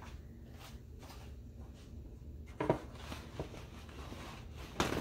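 Kitchen handling noises: a sharp knock a little past halfway, soft rustling after it, and another louder knock near the end.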